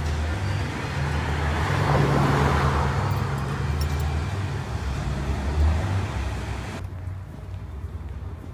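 Car engine running with road noise: a steady low rumble that swells about two seconds in. Near the end the higher part of the sound cuts off suddenly, leaving a fainter rumble.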